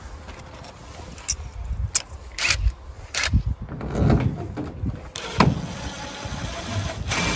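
Irregular knocks, taps and rubbing from a polycarbonate sheet being handled and pressed against a metal greenhouse frame while it is bolted on.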